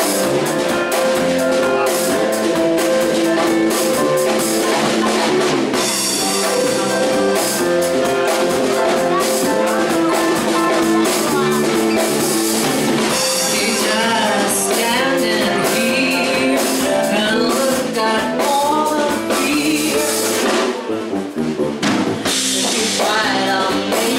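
Live band playing, with a drum kit and a sustained Nord keyboard. A voice comes in about halfway through, singing into a microphone.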